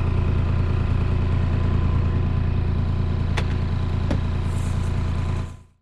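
Kubota KX40 mini excavator's diesel engine idling steadily, with two sharp clicks about three and a half and four seconds in. The sound fades out quickly near the end.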